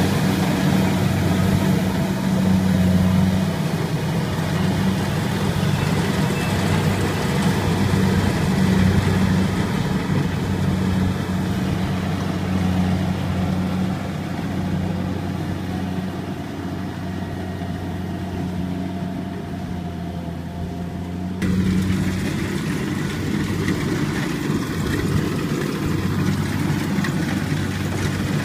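Kubota rice combine harvester's diesel engine and threshing machinery running steadily with a low, even hum. About three-quarters of the way through, the sound cuts abruptly to another combine harvester running louder and closer.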